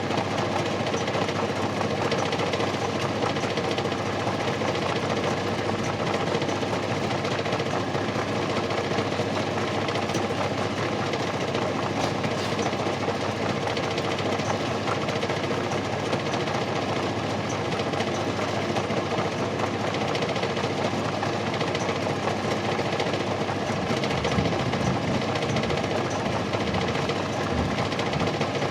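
Electric motor salvaged from a used washing machine, driving a homemade PVC lathe and running steadily with a constant mechanical whir.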